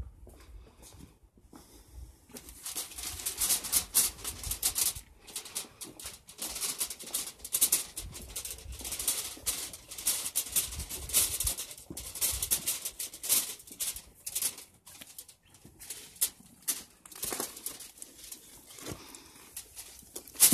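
Irregular crackling and rustling of crinkly sheeting wrapped over a plastic tub as it is carried, starting about two seconds in.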